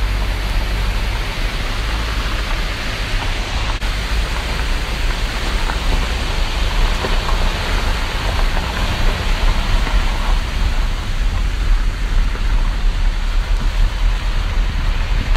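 Wind rushing past an open car window and buffeting the microphone, over the road noise of the moving car.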